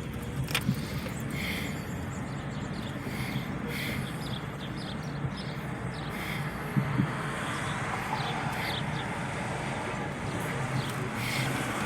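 A car's engine running with a steady low rumble, a few small clicks and taps over it.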